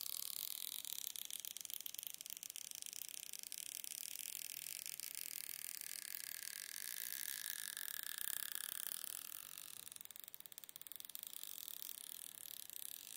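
Faint, fine crackling of an iPhone 7 battery's stretch-release adhesive strip as it is slowly pulled and stretched out from under the battery, over a steady hiss.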